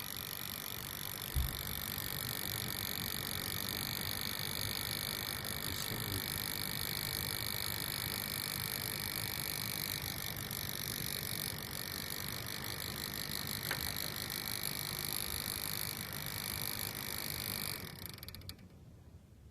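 Desktop PC making a steady high-pitched whine of several tones over a low hum, with a click about a second in; the sound stops suddenly near the end.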